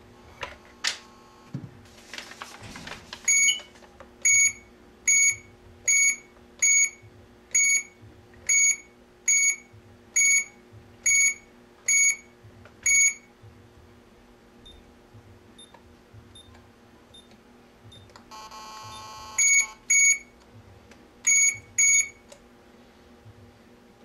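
GSM alarm control panel beeping once at each key press as a code is keyed in: about a dozen short, high beeps a little under a second apart, then after a pause a longer buzzing tone and four more beeps near the end. Plastic clicks and a scrape at the start as the panel's keypad cover is flipped open.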